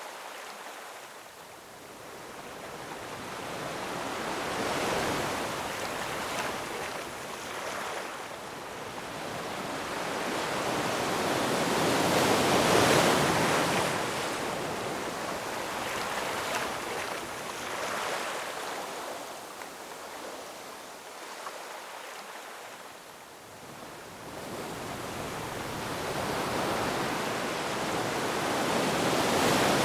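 Ocean waves breaking and washing over rocks, surging and ebbing in slow swells. The surf is loudest about twelve seconds in and again near the end, with quieter lulls between.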